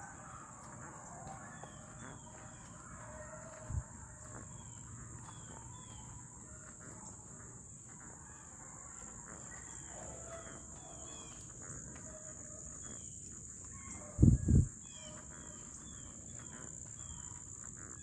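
Steady high drone of insects, with faint, distant beagles baying as they run a rabbit. A short low thump comes about four seconds in, and a louder double thump comes a few seconds before the end.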